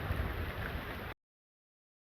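Wind buffeting the microphone: a rough rushing noise with an uneven low rumble that cuts off abruptly about a second in, leaving dead digital silence.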